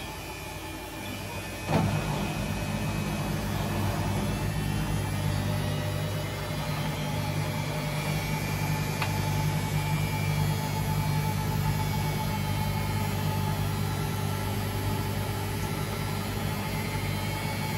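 LG front-loading washing machine running: a sharp click just under two seconds in, then a steady low machine hum.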